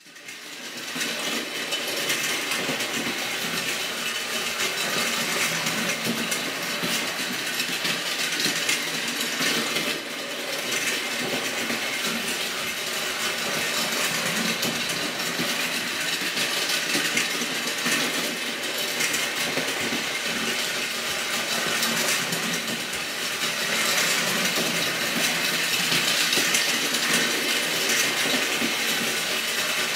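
Battery-powered Distler H0 toy train running on metal sectional track: the small electric motor's steady whir mixed with the rattle of wheels and cars over the rails.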